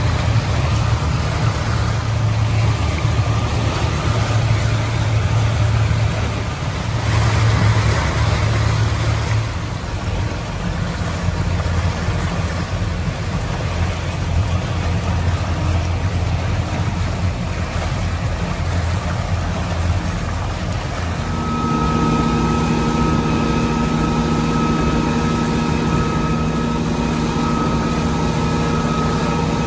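Motorboat engine running under way, with rushing wind and water noise over a strong low hum. The sound swells briefly about seven seconds in, and about twenty-one seconds in the engine settles into a steady, clearly pitched hum.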